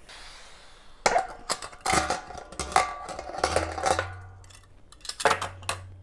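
A pump sprayer gives a brief faint hiss of sanitizer onto a stainless steel ball-lock keg. Then comes a series of about eight metal clanks and knocks, some ringing briefly, as the keg's top and lid are handled.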